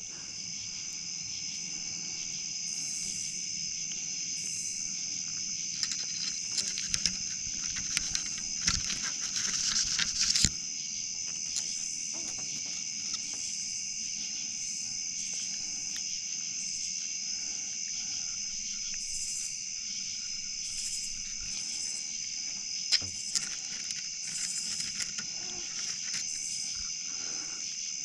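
Steady chorus of night insects, a continuous high-pitched buzz. Over it come scattered clicks and rustles from close handling, heaviest between about 6 and 10 seconds in, with a few sharp clicks again later.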